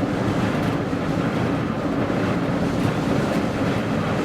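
Strong gale-force wind buffeting the microphone: a loud, steady, rumbling wind noise.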